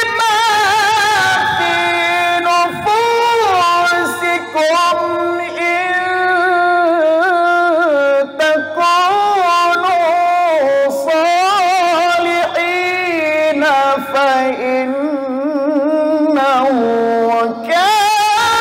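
A man's melodic Quran recitation (tilawah) into a microphone: long, held melismatic phrases with fast wavering ornaments, broken only by short breaths about halfway through and near the end.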